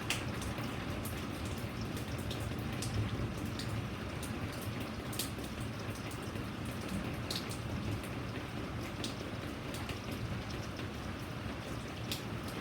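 Steady rain falling, with separate drops ticking sharply at irregular moments against a close surface.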